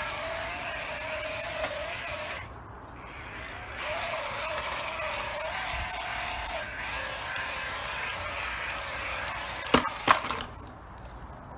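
Micro 1/24-scale RC rally car on a LEGO frame, its small electric motor and drivetrain whining as it drives, the pitch wavering with the throttle. The whine drops away for about a second and a half after two seconds, then returns. About ten seconds in come two sharp knocks as the car runs into a cardboard box, followed by a few light clicks.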